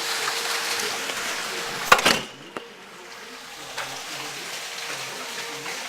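Steady crackling hiss and patter of falling rainwater. A sharp knock comes about two seconds in, after which the hiss is quieter and duller.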